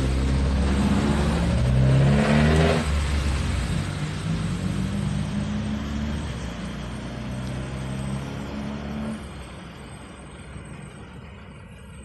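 A motor vehicle's engine passing by: its pitch shifts, it is loudest about two seconds in, then fades away.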